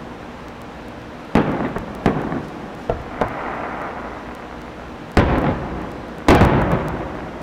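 Aerial firework shells bursting overhead: four loud booms and a smaller pop, the loudest boom near the end, each trailing off in a rolling echo.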